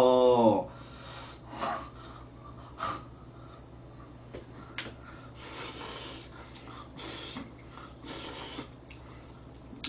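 A man slurping spaghetti noodles off chopsticks: a string of short airy sucking slurps and breaths, the longest lasting about a second, about halfway through.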